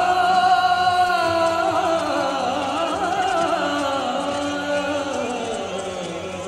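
Background music: a long, wavering melodic line, sung or chanted in an Eastern style, over a steady low drone. It sinks slowly in pitch and fades.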